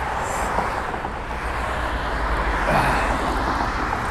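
Road traffic passing close by on a multi-lane road: a steady rush of cars and a pickup driving past.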